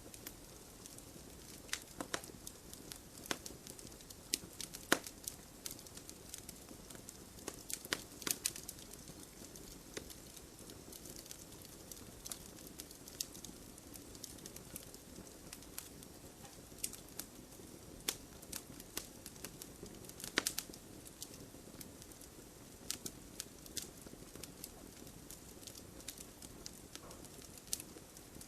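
Campfire burning: wood crackling and popping at irregular intervals over a low, steady hiss, with a few sharper pops standing out.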